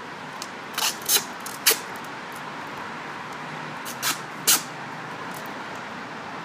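Duct tape ripped off the roll in short pulls, about five in all, while it is wrapped around plastic tubing.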